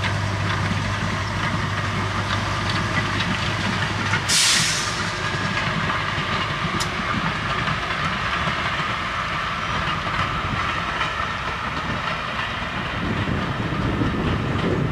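British Railways class 03 diesel shunter D2059, with its Gardner eight-cylinder engine, passing with a steady low drone. The drone drops away about four seconds in as a short loud hiss sounds. Its green passenger carriages then roll by, with wheels clattering over the rail joints.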